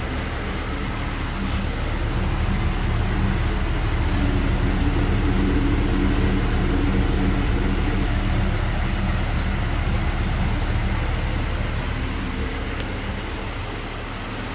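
2012 Ford Escape's 2.5-litre four-cylinder engine idling steadily, heard from the exhaust tailpipe; it grows a little louder about two seconds in and eases off again near the end.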